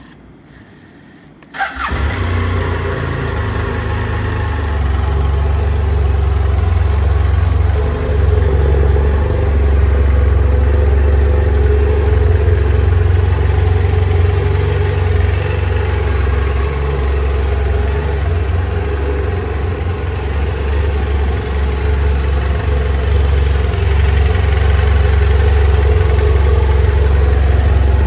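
BMW F800S's 798 cc parallel-twin engine started about a second and a half in, catching at once and then idling steadily.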